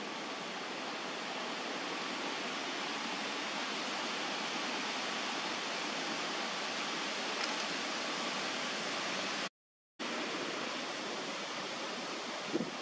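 Steady, even hiss like rushing water, with no animal calls. It drops out to dead silence for about half a second around nine and a half seconds in, then resumes.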